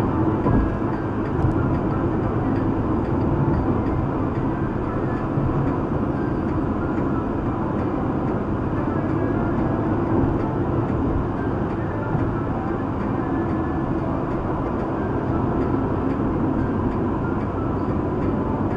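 Steady road and wind noise inside the cabin of a VW Gol 1.6 cruising at highway speed, about 130 km/h, with tyre roar and engine drone blended into one constant rumble.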